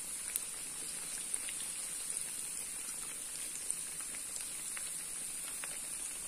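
Vermicelli-coated chicken cutlets deep-frying in hot oil: a steady sizzle with scattered crackling pops, the cutlets partway cooked and turning golden.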